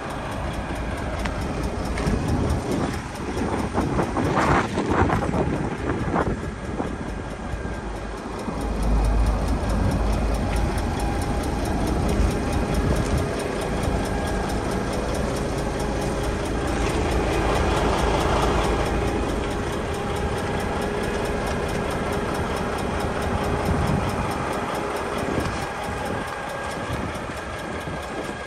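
Heavy truck diesel engine idling steadily: the DAF XF106 460's PACCAR MX-13 six-cylinder. A few louder bumps and rustles come about four to six seconds in.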